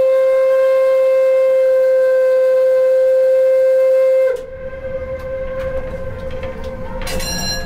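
The paddle steamer's steam whistle giving one long, steady blast, which cuts off about four seconds in and leaves a low background rumble. It is sounded as a warning to a private boat blocking the ship's landing stage.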